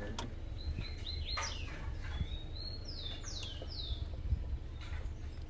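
A small bird chirping: a few short high chirps, then about three quick downward-sliding notes near the middle, over a steady low rumble with a few faint clicks.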